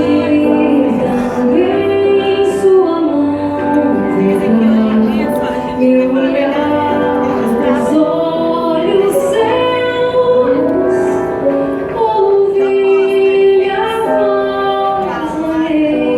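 A woman singing a song with instrumental accompaniment, held notes gliding from one pitch to the next.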